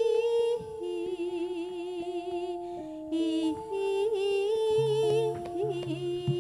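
A Javanese female singer sings a slow, drawn-out melody with wide vibrato into a microphone, over a campursari band's held instrument notes. Deep bass notes join about five seconds in.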